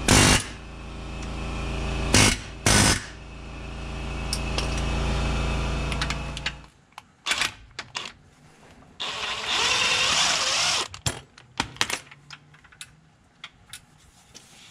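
Impact wrench driving a bolt in short hammering bursts: one at the start, two quick ones about two seconds in, and a longer burst of about two seconds near the ten-second mark, followed by light clicks of metal parts being handled. A steady low hum swells under the first part and stops about seven seconds in.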